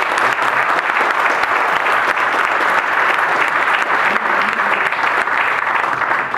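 Audience applauding: many people clapping together, a dense steady patter that dies away right at the end.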